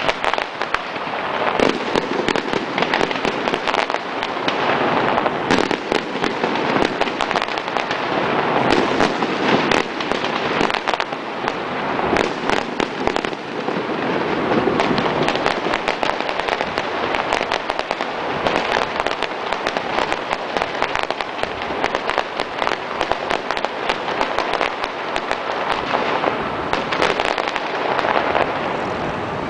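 Fireworks display: a dense, continuous barrage of many bangs and crackling bursts overlapping one another.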